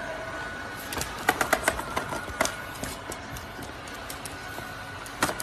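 Robot vacuum cleaner running with a thin steady high whine. A quick run of light clicks and taps comes about a second in, and more come near the end.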